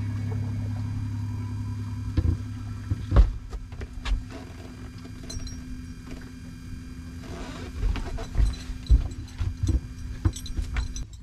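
A boat's motor runs with a steady hum as the boat turns, with scattered knocks and thumps on the boat, more of them in the second half.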